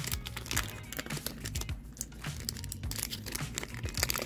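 Hockey card pack's shiny wrapper crinkling and crackling in quick, irregular bursts as hands twist and tug at a pack that won't tear open.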